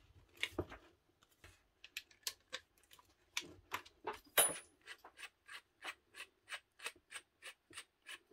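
Keyed drill chuck on a Makita 8410BV drill being opened by hand: scattered faint metallic clicks and taps as the chuck key is fitted and turned, with one sharper click about four seconds in. Then comes a steady run of light clicks, about three a second, as the chuck sleeve is twisted round by hand to open the jaws.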